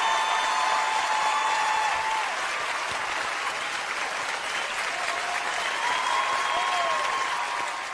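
A large audience applauding, with a few long cheers or whistles rising above the steady clapping.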